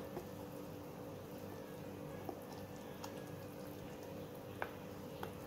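Rice-flour and coconut-milk batter being stirred with a spatula in a glass bowl, with a few light clicks of the spatula against the glass, over faint background music.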